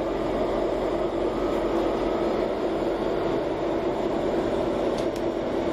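Diesel passenger train running along the line, heard from inside the carriage: a steady rumbling running noise with a constant hum.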